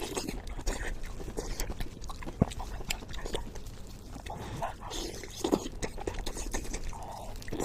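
Close-miked chewing of tender stewed pork, with wet mouth smacks and clicks throughout and a couple of brief murmurs.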